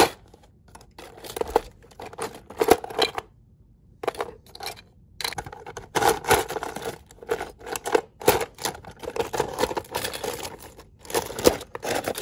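Rummaging by hand through a drawer of old model train parts: plastic locomotive chassis, motors and metal wheelsets clattering and rattling against each other in irregular spells, with a brief pause about three and a half seconds in.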